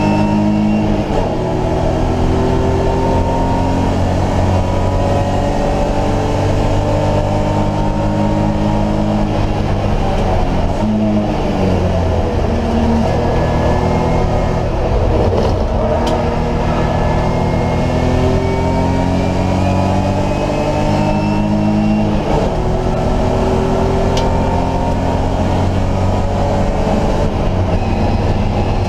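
BMW E30 race car's engine heard from inside the cabin at racing speed, its pitch climbing under acceleration and falling back several times as the driver shifts gear and lifts.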